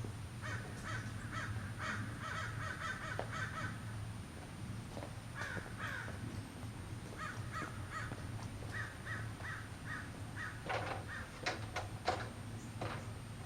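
Bird calls in runs of short, rapidly repeated notes, over a low steady hum, with a few sharp clicks near the end.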